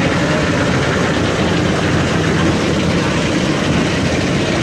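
Portable drum concrete mixers' engines running steadily, a continuous low drone.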